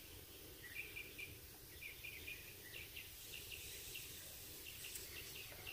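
Faint outdoor ambience of short, high chirps repeating irregularly a few times a second, over a low background rumble.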